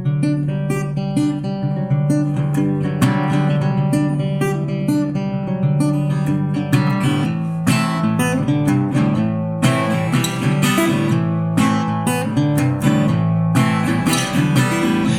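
Guitar music: plucked guitar notes in a steady repeating pattern.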